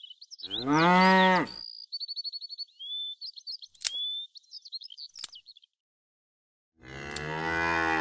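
Cow mooing twice, a loud moo rising and falling in pitch about half a second in and a longer one near the end. Between them, high bird chirps and two sharp clicks.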